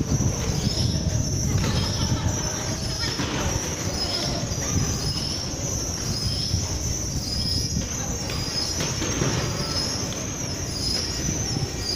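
Fish-market floor ambience: a steady low rumble with indistinct voices of the workers.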